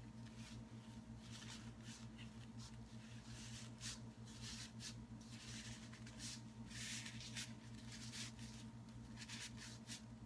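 Faint rustling and scratching of a fabric Spider-Man mask being pulled on and adjusted by hand, in short irregular bursts, over a steady low hum.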